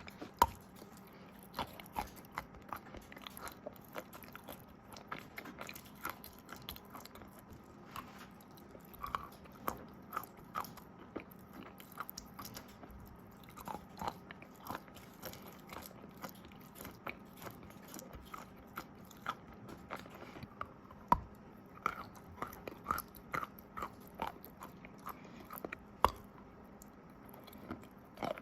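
Close-miked biting and chewing of wet chalk coated in clay paste: many irregular sharp crunches and crackles, a few much louder bites among them.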